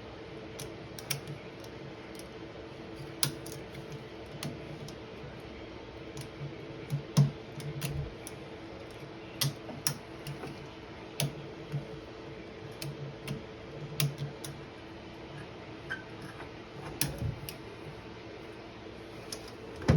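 Ratchet strap mechanisms being let out notch by notch to lower an engine: scattered sharp clicks and clacks at irregular intervals over a steady low hum.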